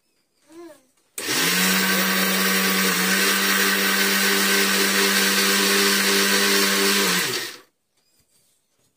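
Electric mixer grinder grinding rice into flour. It is switched on about a second in, spins up quickly, and runs at a steady pitch for about six seconds. Then it is switched off and winds down.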